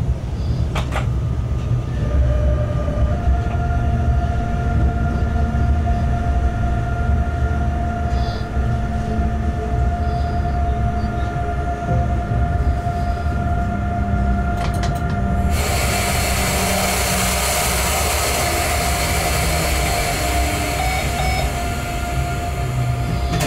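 Locomotive running light along the track, heard from inside the cab: a steady low rumble of wheels on rail with a few steady whining tones and an occasional click. About two-thirds of the way through, a loud hiss sets in suddenly and carries on.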